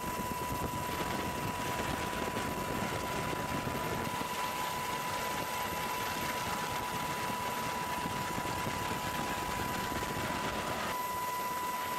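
Steady engine drone with a constant high whine running through it; the low rumble is heavier in the first few seconds, then eases.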